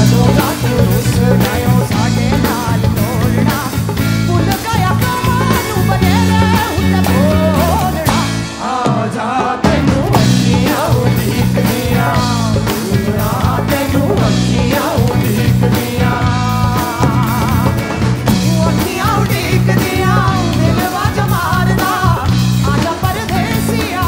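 Live band music: a woman singing into a microphone over bass, guitar and drums with a steady beat. The bass and drums drop out briefly about eight seconds in.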